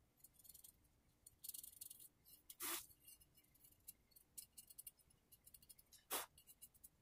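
Faint scratchy rubbing of a cotton wad wiped over an AR lower receiver, cleaning it before shim installation, with two brief handling knocks, a little under three seconds in and again about six seconds in.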